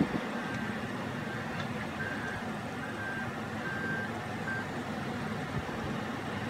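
Caterpillar 972M wheel loader's diesel engine running under load while its reverse alarm beeps about six times, a little under a second apart, then stops about four and a half seconds in as the loader stops backing up. A short knock comes right at the start.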